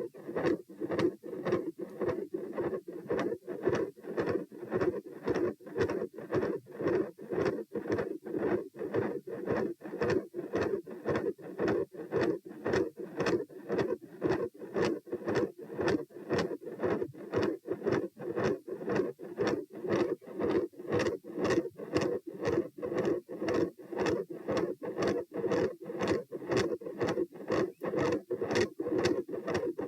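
Human heart sounds: regular beats about twice a second over a large, loud, continuous murmur that runs between them without a break. The uploader suspects the murmur may be a patent ductus arteriosus.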